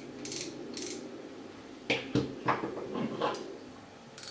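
Spinning reel's drag clicking in an even ratchet of about two to three clicks a second, then, about two seconds in, a few sharp knocks and rattles of metal reels being handled on the table.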